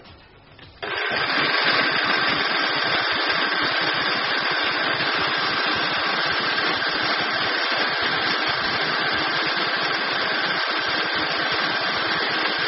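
Countertop electric blender running at a steady speed, puréeing a liquid spice masala in its jar. It starts about a second in, with a steady whine over the motor noise.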